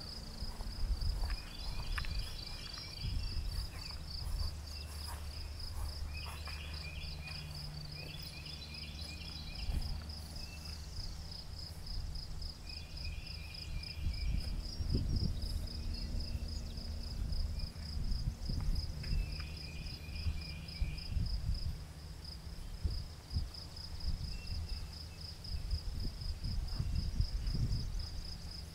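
Crickets chirping in a steady, fast-pulsing high trill, while a second, lower insect call comes in short pulsed bursts every few seconds. Low rumbles and thumps come and go underneath, more often in the second half.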